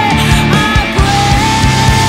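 A band's recorded song plays over a steady drum beat, with a repeating bass line under a held high melody line that slides to a new note twice.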